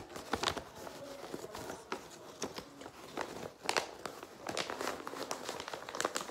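A sheet of paper being folded and creased by hand, rustling and crinkling in quick irregular crackles.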